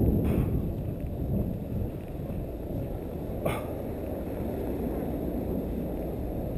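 Steady low, rough wind and handling noise on the microphone while walking, with one short falling yelp a little after three seconds in.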